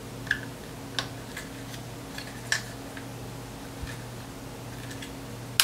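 Hard plastic HyPar building-toy pieces clicking as they are worked into their plastic connectors, a few scattered clicks and then one loud snap near the end as a piece snaps into place. A faint steady hum lies underneath.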